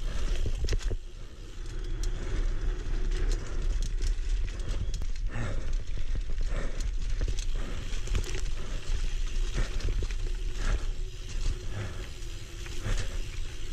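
Single-speed mountain bike ridden along dirt singletrack: a steady low rumble from the tyres and riding, with frequent sharp rattles and knocks from the bike over bumps.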